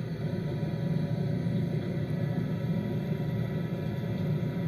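Steady low rumble and hum of a warship's combat information center: machinery, ventilation and electronics room tone.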